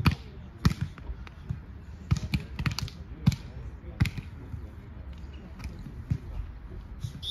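A volleyball being struck by players' hands in a rally: a string of sharp slaps, irregularly spaced, with a quick cluster of hits two to three seconds in.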